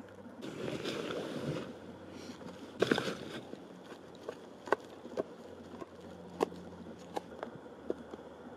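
A knife chopping chives on a plastic cutting board: sharp single taps of the blade hitting the board, irregular, about one or two a second, from about four seconds in. Before that, a burst of plastic rustling as the chives are handled, and a loud clatter of knocks near three seconds.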